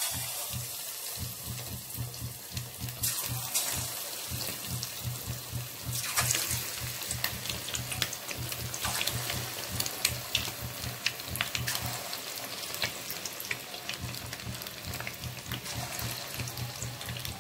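Batter-coated egg pieces deep-frying in hot oil in a steel kadai, the oil sizzling and crackling steadily, with louder swells of sizzle every few seconds as fresh pieces are dropped in.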